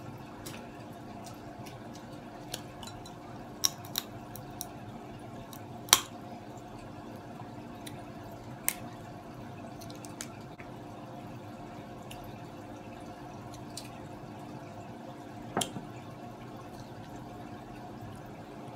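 Steamed blue crab shells cracking and snapping as they are broken apart by hand: scattered sharp cracks, the loudest about six seconds in, over a steady low hum.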